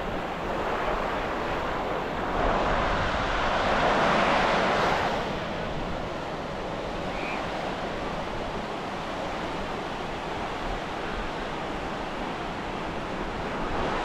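Ocean surf washing up the beach: a wave breaks and rushes in louder a couple of seconds in, then settles into a steady wash. Wind rumbles on the microphone.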